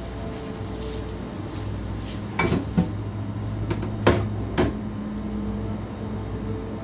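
Cutting board knocking against a kitchen sink as it is washed: four sharp knocks, two about two and a half seconds in and two more about four seconds in, over a steady low hum.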